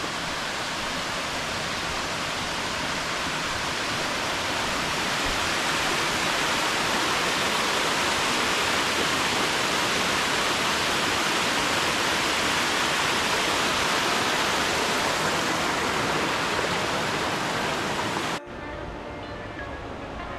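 Small waterfall beside the trail rushing steadily, swelling slightly louder. It cuts off abruptly near the end to a much quieter hiss.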